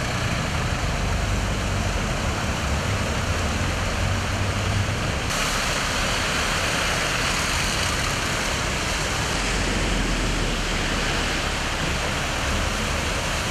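Cars driving through deep floodwater on a street, their tyres churning up and spraying water in a steady rushing noise, with a low engine hum underneath. The noise shifts abruptly about five seconds in.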